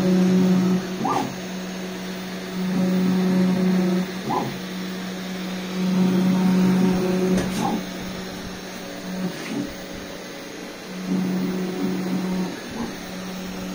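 Home-built CNC router engraving: a steady motor hum that swells louder in stretches of a second or so as the machine works. Short rising whines come every few seconds.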